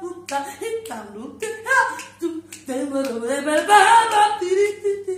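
Live blues singing: a voice sliding up and down between held notes, with sharp strokes from an acoustic guitar underneath.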